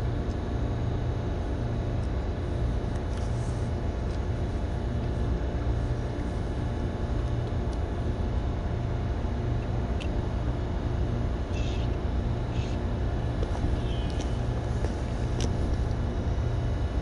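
Steady low machine rumble with a constant hum, like a motor running without change, and a few faint short clicks in the second half.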